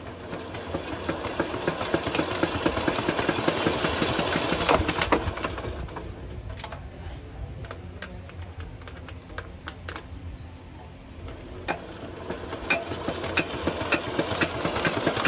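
Restored Samdi R185 single-cylinder diesel engine being hand-cranked to start: it picks up into a fast mechanical clatter over the first few seconds, falls away in the middle, and comes back with sharp knocks near the end as it catches and runs.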